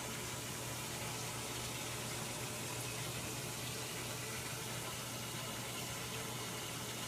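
Samsung WA45H7200AP top-load washing machine running, a steady low hum under an even rushing of water.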